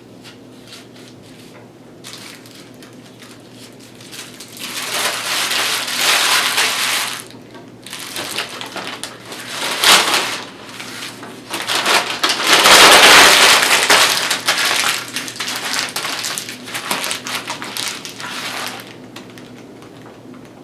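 A wrapper being crumpled and crushed close to the microphone: loud crinkling and crunching in three or four bursts of a few seconds each, the loudest about two-thirds of the way through.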